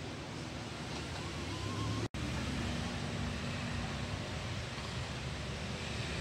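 Steady background hum and hiss, with an instant's cutout about two seconds in.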